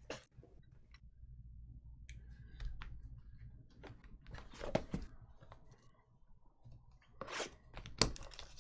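A shrink-wrapped cardboard trading-card box being handled and slid across the table: scattered taps, scrapes and crinkles of the plastic wrap, a little louder about five seconds in and again near the end.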